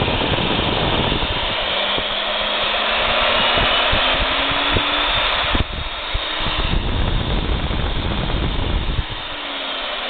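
Milwaukee 4210-1 electromagnetic-base drill's motor running with no load. It whines up in pitch as the variable speed dial is turned up, then winds down near the end.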